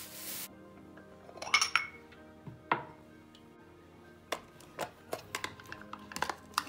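Dishes and cutlery clinking and knocking over soft background music: a ringing clink, a knock, then a run of short taps and clicks. A hiss stops abruptly about half a second in.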